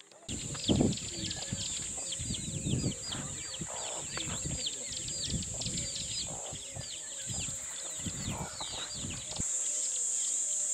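Outdoor bush ambience: many birds chirping in quick, downward-sweeping notes over a steady high insect drone, with an irregular low rumble. About nine seconds in, the rumble drops away and the insect drone grows louder.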